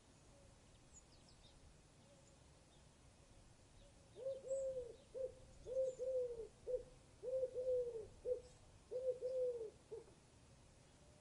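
A bird calling with low hoots, starting about four seconds in. There are four phrases, each two longer notes and a short one, with faint high chirps above.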